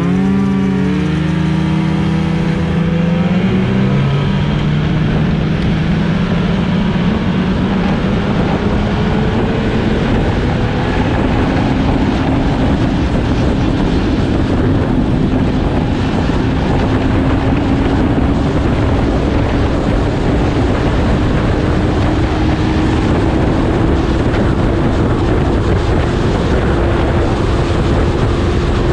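Snowmobile engine running under way. Its note climbs quickly in the first few seconds, then rises slowly and steadily over a constant rushing noise.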